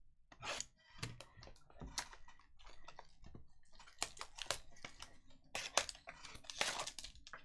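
Plastic shrink wrap being slit with a box cutter and pulled off a small cardboard trading-card box: irregular crinkling crackles and snaps, busiest in the second half.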